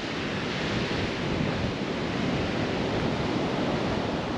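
Sea surf washing onto a sandy beach, a steady rush, mixed with wind on the microphone.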